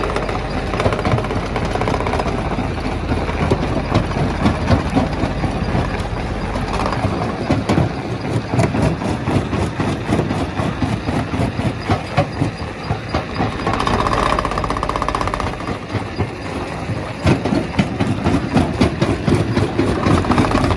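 Stone crusher running: a heavy machinery rumble with dense, irregular knocking and rattling of rock being broken. A brief steady whine comes in about two-thirds through.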